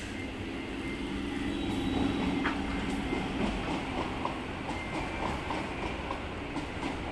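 Electric multiple-unit local train rolling past on the rails: a steady low hum that grows louder over the first two seconds. From about four seconds in there is a regular clickety-clack of wheels over rail joints, about two to three clicks a second.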